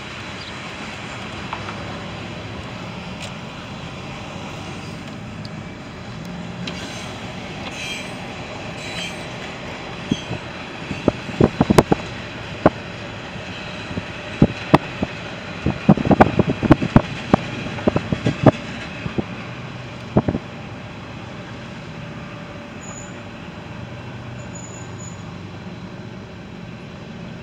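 Freight train running, heard from a moving car: a steady rumble with a run of sharp clicks and knocks from about ten to twenty seconds in.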